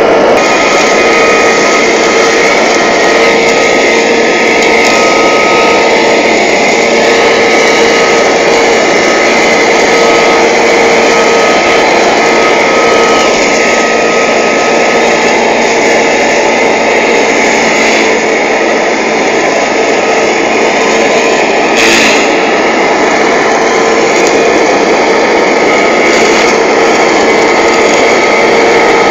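Skotee 240 stump grinder on a New Holland TM 180 tractor, running at full speed as its rotor grinds stumps and soil, a loud steady whine over dense machinery noise. One sharp knock comes about two-thirds of the way in.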